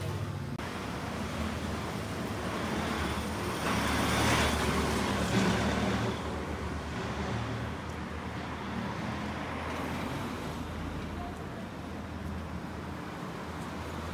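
Street traffic: a steady hum of road noise, with a vehicle passing that is loudest about four to six seconds in.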